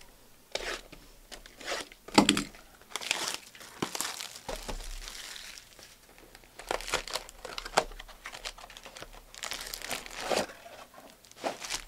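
Plastic shrink-wrap on a sealed box of trading cards being torn open and crumpled: irregular crinkling and tearing, with the sharpest crackle about two seconds in.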